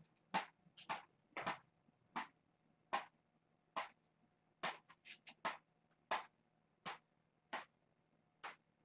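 Short, sharp scratching strokes, about one every three quarters of a second, from fingers scratching on the padded floor mat beside a knitted toy. A faint steady hum runs underneath.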